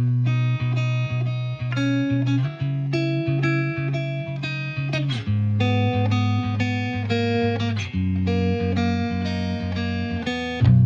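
Music played on guitar: a run of plucked notes over steady low notes.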